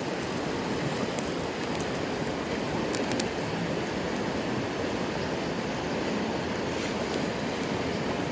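Mountain stream rushing steadily, with a few faint sharp crackles from a wood campfire.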